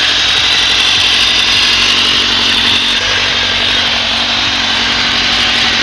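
Honda CBR1000RR-R Fireblade's inline-four engine running loud and steady, with no change in pitch.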